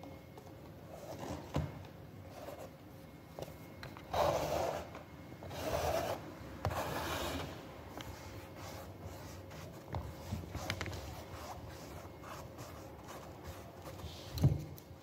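Paintbrush bristles rubbing and scraping across a painted canvas in short strokes, with three longer, louder strokes about four to seven seconds in. A single sharp thump near the end.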